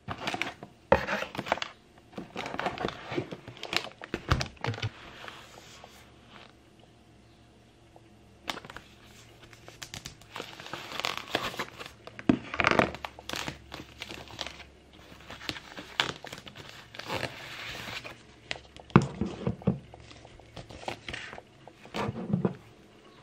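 Clear plastic packaging crinkling and rustling as it is unwrapped by hand, in irregular bursts with a quieter stretch about a third of the way in. A few light knocks from items handled on the table.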